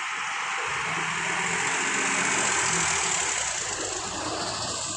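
Diesel engine of a large coach bus running as the bus rolls slowly past; its low hum comes in about half a second in, under a broad rushing noise that swells to its loudest around the middle and then eases off.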